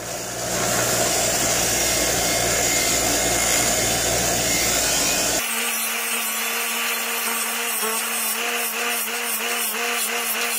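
Bench grinder's wire wheel running with a steel outboard drive shaft held against it, scrubbing carbon and rust deposits off the shaft. About five seconds in the sound changes abruptly: the deep motor hum drops out and a steadier pitched whine with a regular waver remains.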